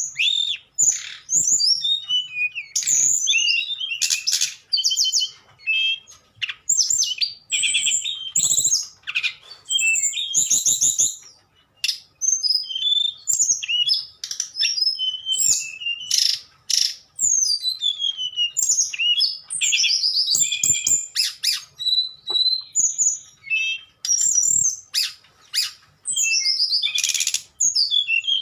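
A tledekan songbird singing a fast, varied, flute-like song of high whistles, pitch sweeps and rapid trills, run together with only short breaks and one brief pause about twelve seconds in.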